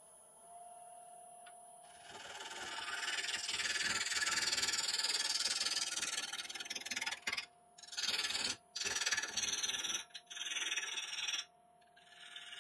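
A bowl gouge cutting into spinning laburnum on a wood lathe: a rough shearing noise that starts about two seconds in and breaks off briefly several times later on as the tool leaves the wood, over a steady whine from the lathe.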